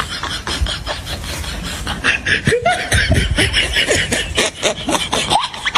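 Laughter in quick repeated bursts.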